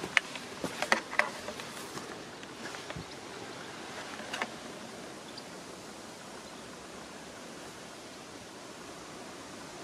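Someone pushing through dense undergrowth on foot, with a few sharp snaps and crackles of stems and leaves in the first second or so and once more about four seconds in. A steady hiss runs underneath.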